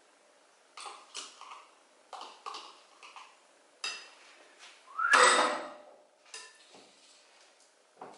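Spoon knocking and scraping against a ceramic mixing bowl and a tub as ricotta is scooped into the bowl: a run of short taps, with one louder squeaking scrape about five seconds in.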